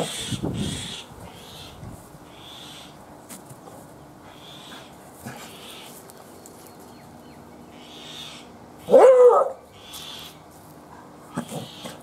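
A Staffordshire bull terrier gives one loud, short whining bark about nine seconds in, with a few softer snuffs near the start and near the end. A bird's short high calls repeat about once a second in the background.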